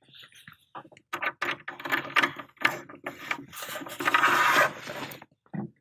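Battery DC cables being handled and pushed into the inverter's push-in DC terminal blocks: a string of short scrapes and knocks of cable insulation rubbing against plastic, with a longer rub about four seconds in.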